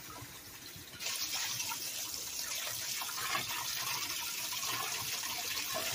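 Kitchen tap running into a stainless steel bowl of water in a steel sink, splashing over pieces of dried salted fish being rinsed and soaked. The flow turns louder about a second in and then holds steady.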